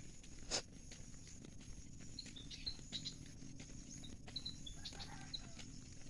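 Footsteps of a person walking along an overgrown trail, with rustling and a louder knock about half a second in. Short high bird chirps come in several times from about two seconds in.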